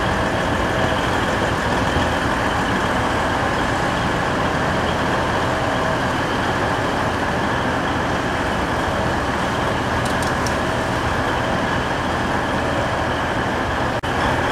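Steady, loud vehicle noise, an unbroken rumble with hiss that neither rises nor falls, with a brief sudden drop near the end.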